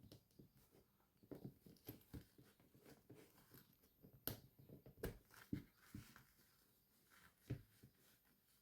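Faint handling sounds: soft rustling of doll clothes with a few short light clicks and taps, the sharpest about four seconds in.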